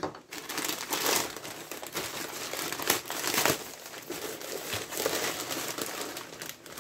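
Plastic poly mailer bag crinkling and tearing as hands rip it open and pull the plastic apart, a continuous rustle broken by many sharp crackles.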